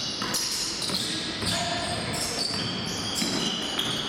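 Basketball sneakers squeaking on a hardwood gym floor in many short, high-pitched chirps, with a basketball bouncing.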